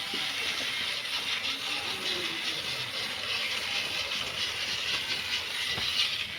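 Small plastic BO gear motors of a homemade 4x4 RC car running, a steady high whirring buzz from the motors and their gearboxes.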